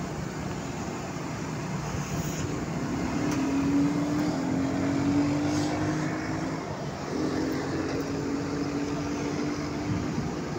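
An engine running, a steady hum over a low rumbling background, its pitch rising slightly, dropping out briefly about two-thirds of the way through and then coming back.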